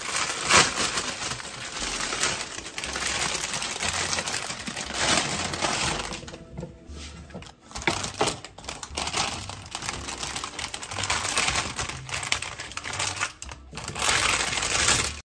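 A plastic produce bag crinkling and rustling as asparagus is taken out, with many sharp clicks and knocks of the spears against a wooden cutting board as they are laid out and arranged. The sound cuts off suddenly near the end.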